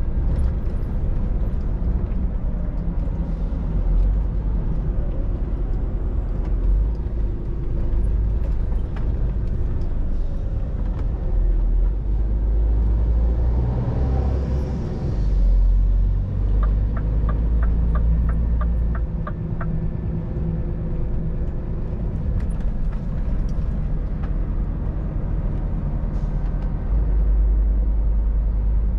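Scania R500 truck's diesel engine running at low city speed, heard inside the cab as a steady low rumble. About halfway through there is a brief hiss, followed by a run of about nine evenly spaced ticks, about three a second.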